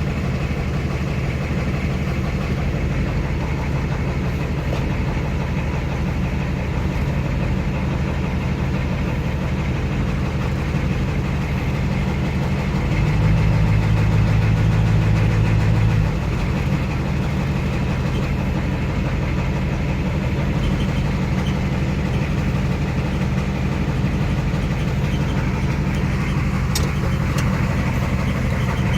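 Ford truck's IDI diesel idling steadily with a squeal from its ZF5 S5-47 transmission; the squeal comes from the rear countershaft bearing race spinning in the transmission case. The engine note gets louder and deeper for about three seconds near the middle.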